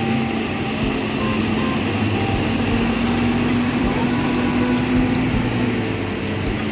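Tour bus diesel engine running steadily with a low hum, with voices in the background.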